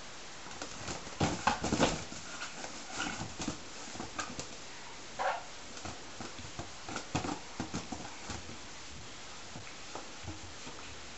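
Latex balloons being grabbed, rubbed and bumped by a baby's hands and mouth: scattered rubbing and tapping noises, loudest in a cluster between one and two seconds in, with a short pitched squeak about five seconds in and more taps a little later.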